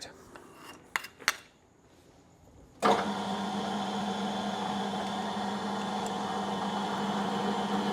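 Two sharp clicks, then about three seconds in a metal lathe starts and runs steadily at low speed, driving a 1/2 inch Whitworth tap held in its chuck; the tap is slipping in the chuck rather than cutting.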